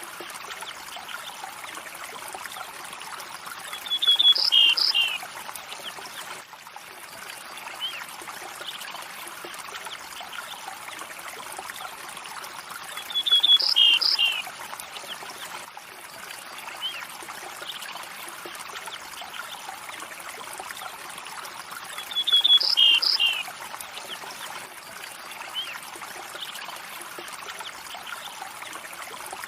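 River water flowing steadily, with a songbird's short call, a quick trill then two descending notes, rising above it three times about every nine seconds in an identical repeating pattern.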